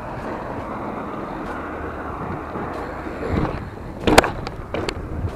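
BMX bicycle rolling along asphalt: a steady rush of tyre and wind noise, with two sharp clacks about four and five seconds in.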